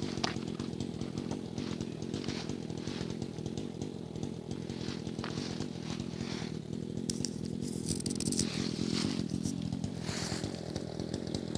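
Dolmar chainsaw running under load as it cuts through a log, with its engine note shifting slightly near the end.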